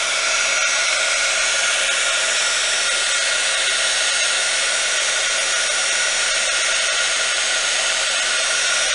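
Handheld electric hot-air blower running steadily, blowing across wet epoxy resin to push the white pigment into waves. It makes an even rushing of air with a faint steady motor whine.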